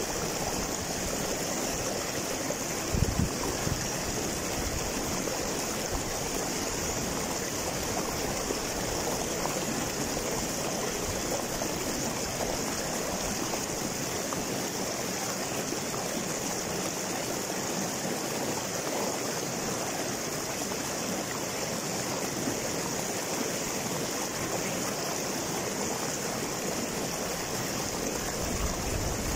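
River water rushing and splashing over boulders in a small cascade, a steady rushing. A brief low thump comes about three seconds in.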